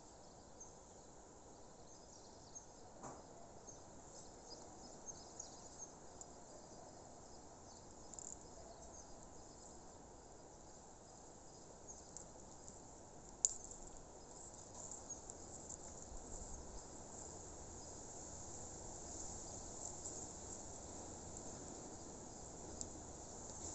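Crickets chirping in a steady high chorus over a faint low hiss of outdoor ambience, with one sharp click about halfway through.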